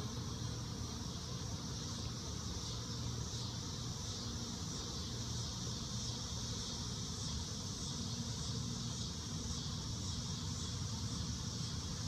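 A swarm of honey bees buzzing steadily in the air around a tree, with a high, steady insect drone behind it.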